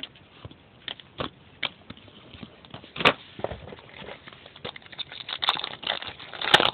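Baseball trading cards being handled: a pack wrapper crinkling and cards clicking as they are flipped through, denser about three seconds in and again near the end.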